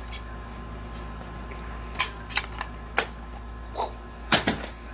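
Plastic DVD cases being handled, giving a few sharp clicks about two and three seconds in and a louder clatter a little after four seconds, over a low steady hum.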